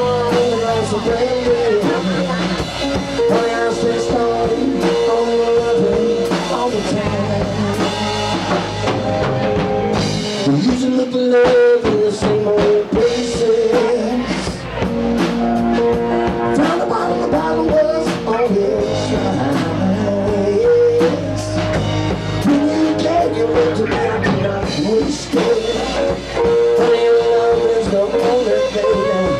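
Live band playing a slow blues-rock ballad: a lead electric guitar plays bending melodic lines over bass and drum kit.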